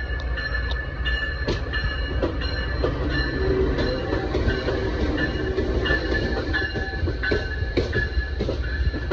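Amtrak Northeast Regional passenger train running on the rails: a steady low rumble with irregular clicks from the wheels and thin, high ringing tones from wheel and rail that come and go.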